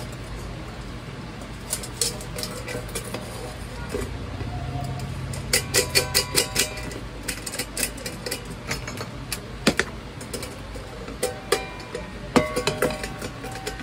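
Stainless steel saucepan clinking and tapping as it is gripped and worked with steel pliers on a metal bench, some knocks leaving the pan briefly ringing. The knocks come in clusters about five and a half to seven seconds in and again about eleven to thirteen seconds in.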